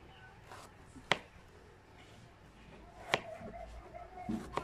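Knife cutting peeled potatoes into small pieces on a plastic cutting board: three sharp taps of the blade on the board, about two seconds apart.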